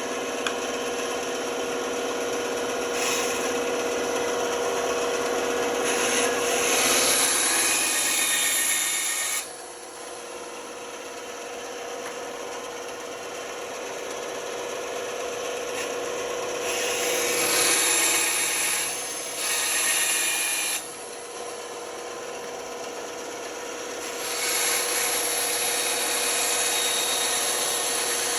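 Band saw running with a steady hum while its blade cuts through wood. The cutting noise swells and drops several times, loudest in stretches a quarter of the way in, past the middle and near the end.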